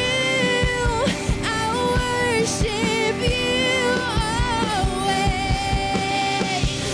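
Worship song: a singer holds long notes over a band with a steady drum beat.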